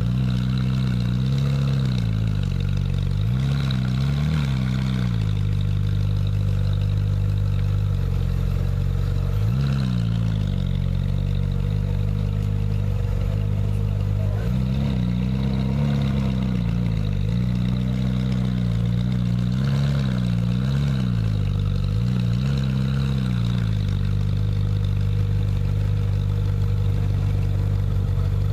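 Ferrari 458 Speciale A's 4.5-litre naturally aspirated V8 idling steadily, with a series of short throttle blips that rise and fall back to idle, some singly and some in quick pairs, spread through the stretch.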